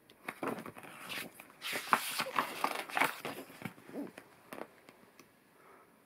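A page of a paperback picture book being turned by hand: the paper rustles and crinkles with a run of small clicks, dying away about four and a half seconds in.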